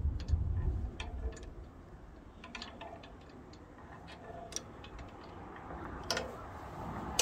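Scattered, irregular metal clicks and ticks from tightening the blade-wheel jacking bolt on a bandsaw mill with a wrench, with some handling rumble in the first second or so.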